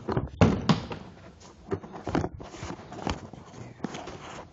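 Handling noise: irregular knocks and rustles of a phone and clothing being moved about, the loudest about half a second in.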